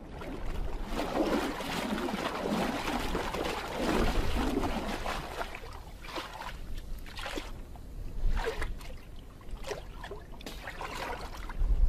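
Water sloshing and trickling in a Weddell seal's breathing hole in the sea ice as the seal comes up. In the second half there is a run of short, sharp scrapes or knocks.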